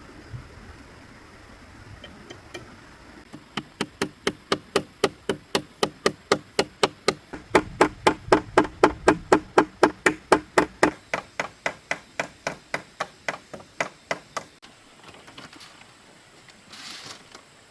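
A hand tool striking wood in a fast, even rhythm of about three blows a second, for roughly eleven seconds, the blows growing louder then fading off before stopping.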